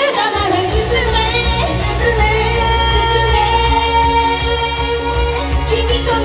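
A woman sings a pop song live into a handheld microphone over backing music. The bass and beat come in just after the start, and she holds one long note in the middle of the line.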